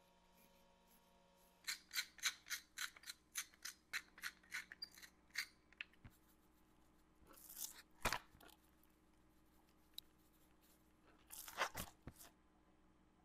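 Hand-held metal spice grinder being twisted, giving a fast run of crunchy clicks, about five a second, for a few seconds. Two short scraping bursts follow later, one ending in a sharp click.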